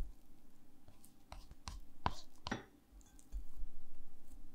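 Silicone spatula stirring and scraping a sticky, shaggy bread dough in a glass bowl: soft squelching and scraping with a few sharp clicks, growing louder and steadier from about three seconds in.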